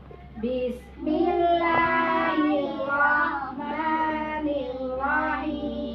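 Children's voices chanting prayer recitation aloud in long, drawn-out sung tones, starting about a second in.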